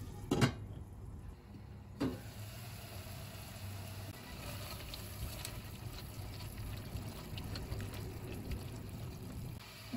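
A glass pot lid clinks down onto a stainless steel pot about half a second in, with a smaller knock about two seconds in. Then a faint, steady sizzle of chopped tomatoes and onion cooking in olive oil, with a few soft ticks of a silicone spatula stirring near the end.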